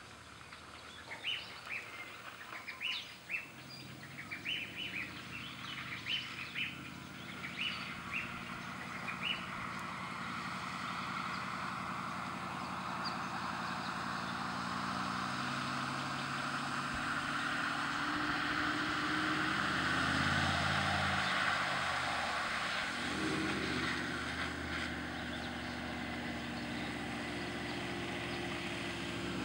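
Toyota 76 Series Land Cruiser's V8 turbo-diesel driving across a river causeway and up the track, its engine getting steadily louder as it approaches, with a shift in engine pitch about two-thirds of the way through. A hiss of water spray comes off the wheels mid-crossing, and birds chirp over the first ten seconds.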